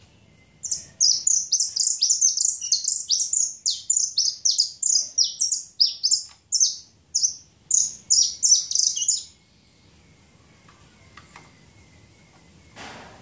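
Caged saffron finch singing its buzzy, cicada-like 'chicharreo' song: a fast run of high notes, each sweeping downward, about three a second. The song stops a few seconds before the end.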